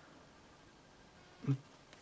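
Near silence: room tone, broken once about one and a half seconds in by a very short low voice sound from a man.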